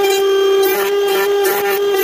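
DeWalt router running at full speed with a steady high whine. Its roundover bit cuts into a square stick of wood, adding a rasping cutting noise that comes and goes as the stick is fed and turned.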